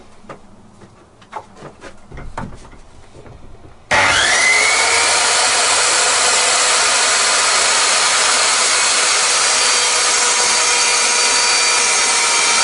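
A few light knocks as a square and saw are set on a board, then a handheld circular saw starts suddenly about four seconds in. Its motor whines up to speed and runs steadily, loud, as the blade cuts across the end of the wooden board to square it off.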